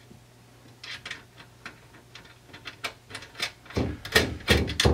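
Small metal clicks and taps of a cable's ring terminal, washer and nut being handled and fitted onto an inverter's positive DC terminal, with a few louder knocks and rattles near the end.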